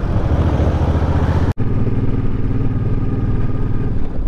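Suzuki cruiser motorcycle engine running at a steady cruising speed, heard from the rider's seat with rushing wind noise over it. The sound drops out for an instant about a second and a half in, and after that the engine hum is steadier with less wind.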